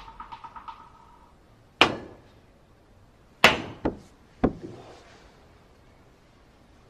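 Sharp clicks of snooker balls and cue on the table: one hard knock, then about a second and a half later a quick run of three knocks.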